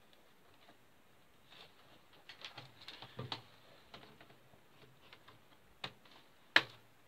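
Laptop's plastic top case being lifted off and turned over by hand: a cluster of light plastic clicks and rattles, then a single click and a sharper, louder knock near the end.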